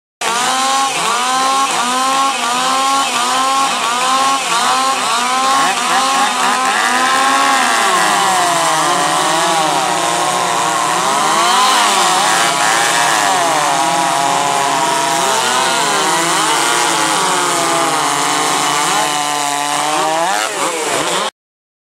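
Modified two-stroke racing chainsaws under 77 cc running at high revs. For the first several seconds the engine pitch rises and falls about twice a second; after that it dips and climbs irregularly with several engine notes overlapping, as the saws load up and free up in the wood. The sound cuts off abruptly near the end.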